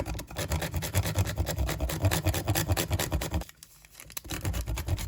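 Rapid, repeated scratching strokes close to the microphone, with a brief pause about three and a half seconds in.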